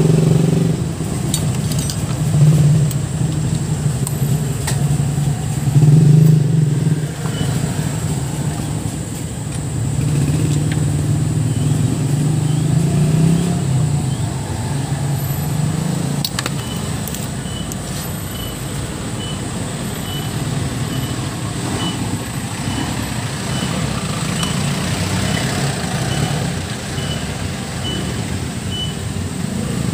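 Motor vehicle engines running, their drone swelling and fading, with a few sharp clicks and a faint, evenly repeating high beep through the second half.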